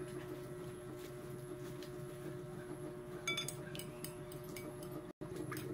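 Metal spoon clinking against a glass bowl as raw eggs are stirred, a run of light clinks starting about three seconds in.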